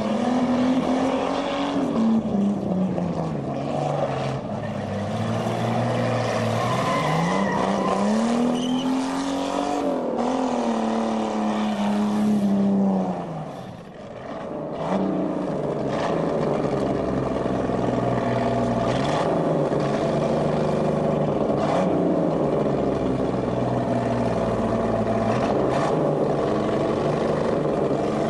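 Chevrolet Chevette's engine revving hard during burnouts and spins, its pitch rising and falling over and over, with a brief drop about halfway through.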